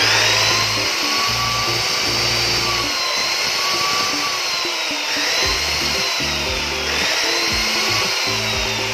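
Ingco cut-off machine (abrasive chop saw) running with no load at full speed, a steady high motor whine that wavers slightly in pitch. This is a test run of the brushed motor after a new armature was fitted and the gears were cleaned and regreased.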